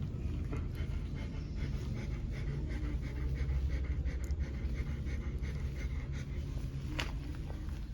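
Two-day-old German Shepherd puppy hiccuping and breathing in its sleep: small soft hiccup jerks over a low steady rumble, with one sharp click about seven seconds in.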